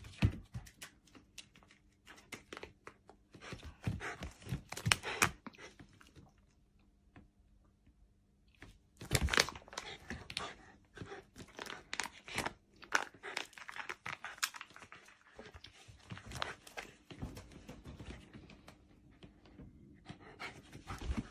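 A Shiba Inu romping around a beanbag: irregular scuffs, rustles and crinkly scrapes come in bursts, with a quiet stretch about a third of the way in and the loudest flurry just after it.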